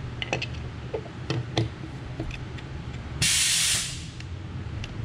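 Small clicks and taps of parts being handled at a motorcycle engine's clutch cover. About three seconds in comes a loud hiss of pressurised spray, lasting just over half a second and cutting off sharply.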